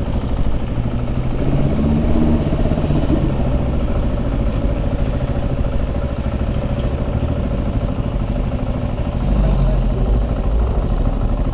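KTM 690 SMC R supermoto's single-cylinder engine running steadily while riding through town, getting a little louder near the end.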